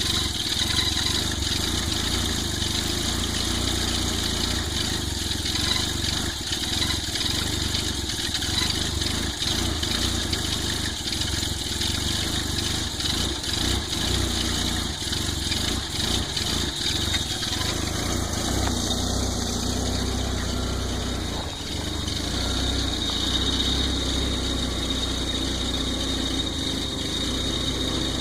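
Volvo 940 Turbo's four-cylinder turbo engine idling roughly on a cold start, its note wavering unevenly instead of holding steady.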